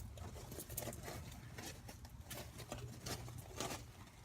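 Irregular soft footsteps and rustling on dirt and garden plants, with light handling noise from the phone.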